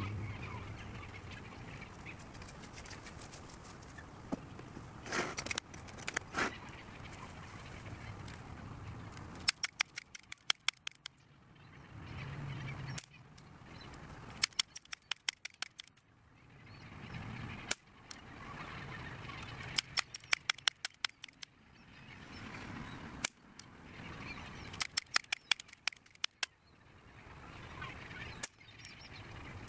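Crosman 1377 pump-up pneumatic air pistol being worked through a shooting session: repeated swelling strokes alternate with clusters of sharp clicks every few seconds.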